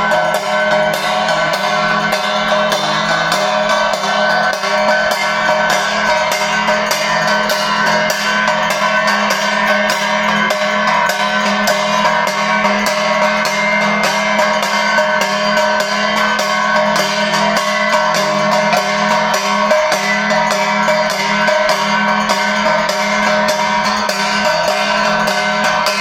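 Devotional arati music with fast, continuous percussion: rapid strikes over many steady ringing tones, without a break.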